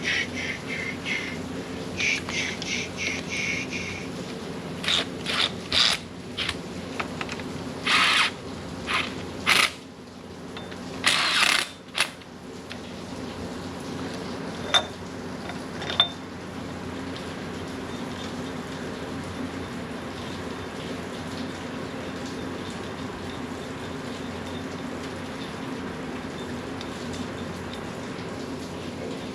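Hand ratchet clicking in quick strokes for the first few seconds, then scattered clanks and clicks of hand tools on metal engine parts. A steady low hum runs underneath.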